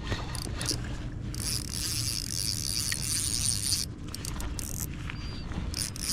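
Fishing reel working while a hooked fish is fought in: a steady mechanical whirr for a couple of seconds in the middle, over a low background rumble.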